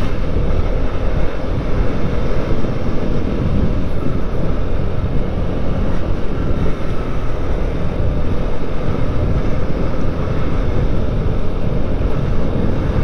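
Wind rushing over the camera microphone while riding a Yamaha Gear 50 cc scooter at a steady pace, with the engine and road noise running underneath as a loud, steady rumble.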